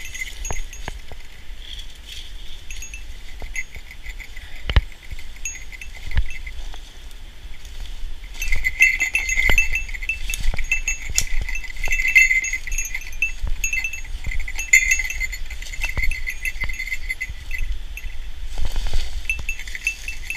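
A small bell jingling steadily as the wearer walks, livelier from about halfway through, with scattered knocks from footsteps and handling.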